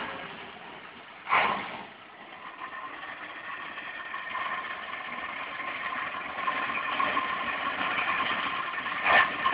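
An engine running steadily with a faint whine, slowly growing louder, with one sharp knock about a second in.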